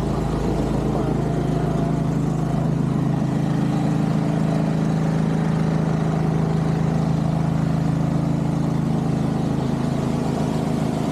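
Pressure washer engine running at a steady speed, with an even hiss over it.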